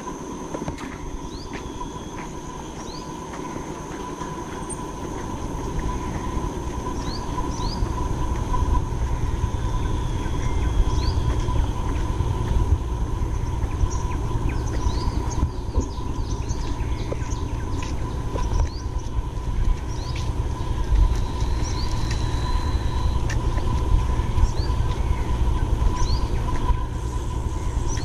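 Morning outdoor ambience: many short, quick bird chirps over a steady high tone, with a low rumble that grows louder a few seconds in and stays the loudest sound.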